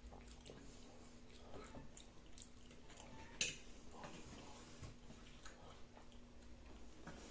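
Metal fork clinking and scraping on a plate of meat and potatoes, quietly, with faint chewing; one sharp clink about three and a half seconds in is the loudest sound.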